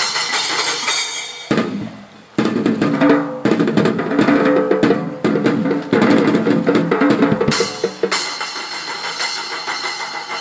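Music led by loud drumming, with bass drum and snare strikes over held instrument tones. The drumming drops out briefly about two seconds in, comes back hard for several seconds, then gives way to a softer, steadier wash.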